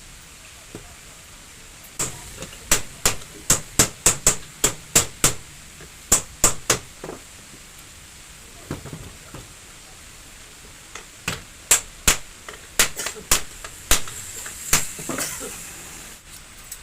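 Hammer blows striking metal parts of a washing machine motor being taken apart for repair. There are two runs of sharp strikes, about three a second: one run a couple of seconds in and another in the second half.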